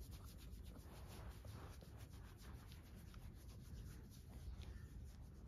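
Faint, irregular rustling and scratching of a Shih Tzu wriggling on her back on carpet, fur and paws rubbing against the pile.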